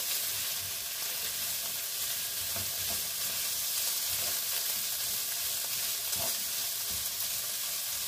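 Shredded chicken, carrots and green beans frying in oil in a nonstick frying pan, a steady sizzle, while a wooden spatula stirs and tosses them with soft strokes every second or two.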